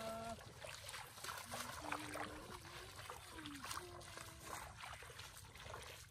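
Footsteps wading through shallow water: irregular splashing and sloshing as feet lift and drop through flooded grass.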